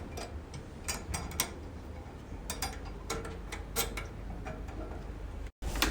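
Irregular light metallic clicks and taps of a hand tool tightening screws to fix a shelf onto a metal stand. The sound cuts out for a moment near the end.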